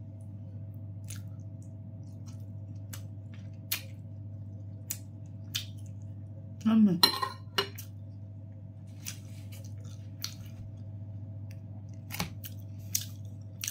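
Fork clicking and scraping against a plate while eating, scattered light clicks over a steady low hum. A short burst of voice about seven seconds in is the loudest moment.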